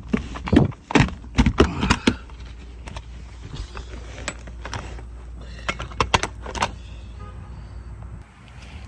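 Metal tools and hardware clinking and knocking in two clusters of sharp strikes, the first two seconds and again around six seconds in, over a steady low rumble that drops away near the end.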